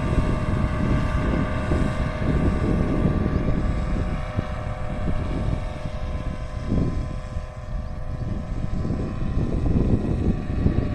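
Paramotor's engine and propeller droning steadily, under heavy wind buffeting on the microphone that eases a little in the middle.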